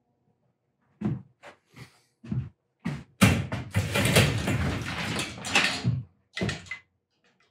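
A few separate knocks, then about three seconds of dense clattering and rummaging, then two more knocks: objects being handled and moved about at a workshop bench.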